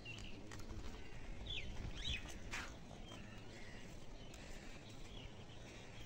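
Faint outdoor ambience: small birds chirping now and then in short up-and-down chirps, over a low rumble.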